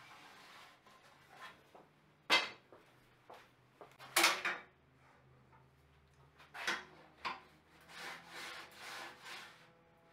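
Thin wooden runner strips clacking and sliding on a metal table saw top as they are laid into the miter slots: a few sharp knocks, then some rubbing as a strip is pushed along. A faint steady hum runs underneath.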